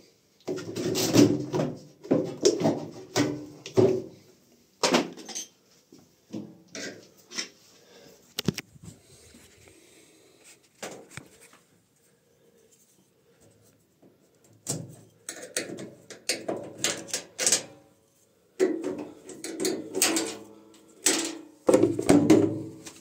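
Knocks and clatter of parts being handled and pulled inside a washing machine cabinet during disassembly, in irregular bouts with quieter gaps between.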